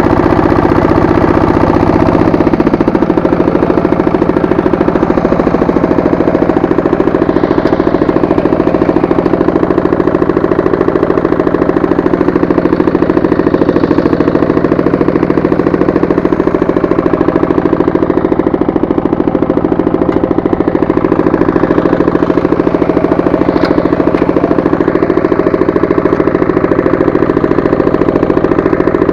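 Walk-behind tractor engine running steadily, close up. Its pitch drops slightly about two and a half seconds in, then it holds a steady running note.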